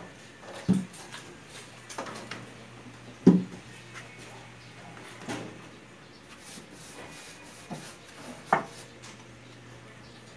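Paintbrush rubbing against the inside of a wooden speaker cabinet as varnish is brushed on, with a few dull knocks on the wood, the loudest about three seconds in.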